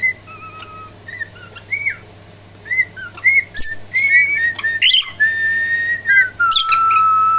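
Cockatiel whistling: a run of short rising-and-falling whistled notes, then in the second half two long held whistles, the second lower. A few sharp clicks fall between the notes.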